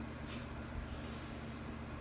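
Quiet room tone: a steady hiss with a faint low hum and no distinct sounds.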